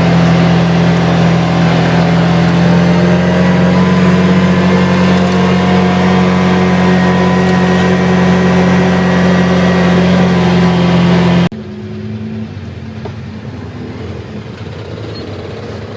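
ATV engine running steadily under way, loud, with road and wind noise over it. About three-quarters of the way through it drops suddenly to a much quieter engine sound.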